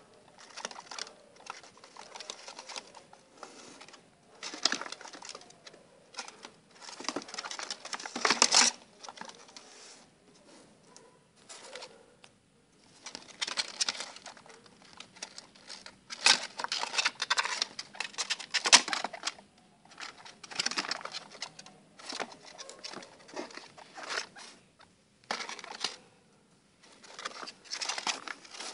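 Baby guinea pigs scurrying on a cardboard floor: irregular bursts of pattering and scratching from small feet and claws, with quieter gaps between.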